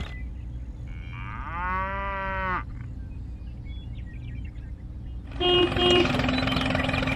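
A cow moos once, about a second and a half in: one call that rises and then holds for about a second, over a low steady hum. About five seconds in, a louder engine sound starts as the toy tractor drives up.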